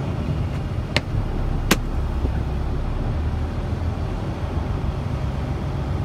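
Steady low rumble of a semi-truck's engine and tyres heard inside the cab while driving, with two sharp clicks, one about a second in and another just under a second later.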